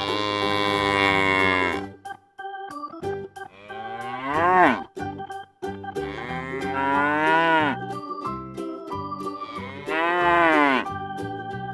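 Cow mooing four times, long drawn-out moos that swoop in pitch, over light children's music with steady keyboard notes.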